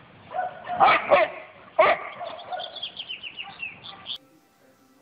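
Boxer dog barking, with loud barks about one and two seconds in, followed by a quick string of shorter sounds that cuts off abruptly about four seconds in.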